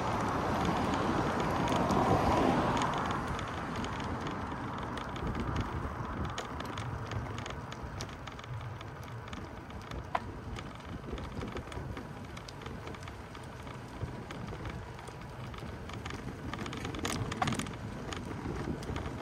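Outdoor street ambience with a vehicle passing and fading away over the first three seconds, then a steady distant traffic hum with a few faint clicks.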